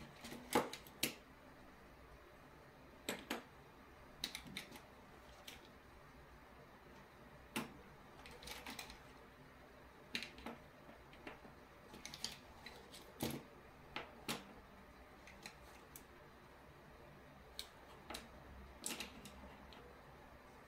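Mechanical pencils and pens being taken from a fabric pencil case and set down one at a time on a cutting mat: irregular light clicks and taps of plastic and metal barrels, with a little rummaging in the case.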